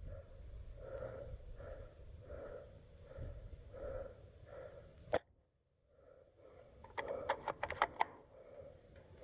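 A person breathing heavily close to the microphone, in steady puffs less than a second apart. A single sharp click comes about five seconds in, followed by a brief drop to near silence, and a quick run of sharp clicks comes near the end.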